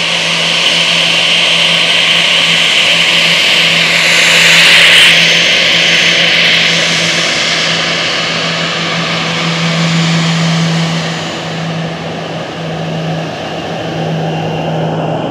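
Airbus A340-300's four CFM56 turbofan engines at taxi power: a steady high whine over a low hum, swelling loudest about five seconds in as the airliner passes close, then easing off.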